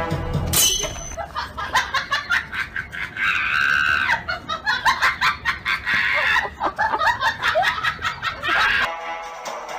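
Siberian husky whining and screaming in a rapid string of short, high-pitched cries, with one longer high cry about three seconds in; a brief rising swish comes just before.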